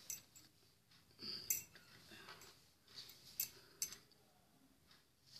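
Faint handling noises: a few light clicks and soft scraping rustles as cloth and tailoring tools are moved about, with a short scrape about a second in.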